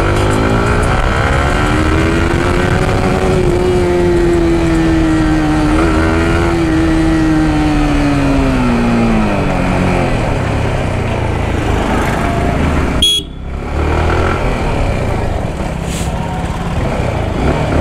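Yamaha R15M's single-cylinder engine running as the bike is ridden along a street: its pitch rises over the first few seconds, holds, then falls away around ten seconds in as the bike slows. The sound cuts out sharply for a moment about thirteen seconds in.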